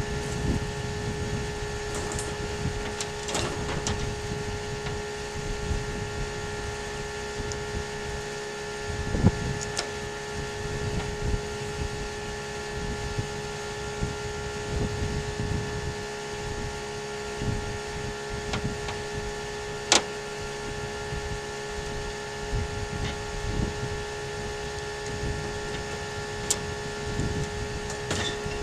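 Steady mechanical hum made of several held tones, with irregular low rumbling and a few sharp clicks and knocks; the loudest knocks come about 9 and 20 seconds in.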